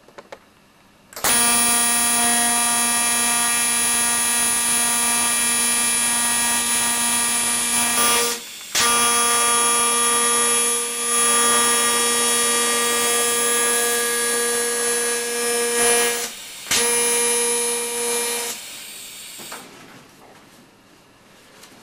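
TIG welding arc on stainless steel pipe, a steady buzz with hiss, in three runs of several seconds with two short breaks, tailing off near the end.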